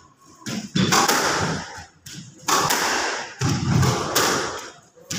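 Squash ball being struck by rackets and hitting the court walls during a rally: several sharp thuds, each echoing briefly in the court.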